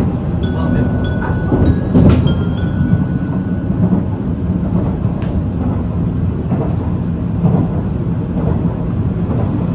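Running noise of a Tokaido Shinkansen train heard from the deck between cars: a steady, loud rumble with a knock about two seconds in and faint short high tones in the first few seconds.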